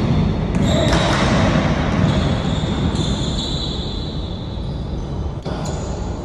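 Basketball game in play: the ball bouncing on the court amid steady court noise.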